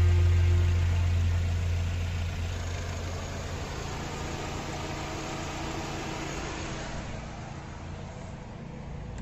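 Petrol car engine idling with its electric radiator cooling fan running, a steady whir. The fan running again shows that the cooling fan 1 control circuit fault (code P0480) has been fixed. A low hum fades out over the first two or three seconds.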